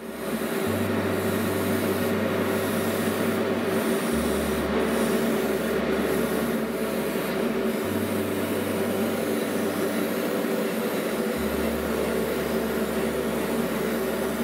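Airbrush spraying a coat of semi-gloss clear varnish: a steady hiss of air and paint, with a steady hum under it, starting right as the spraying begins.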